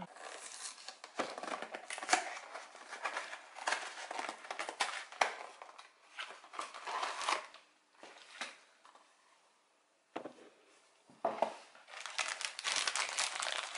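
A small cardboard toy box opened by hand, its flaps and card rustling and scraping, then a thin plastic parts bag crinkling as it is handled, with a short lull about eight seconds in.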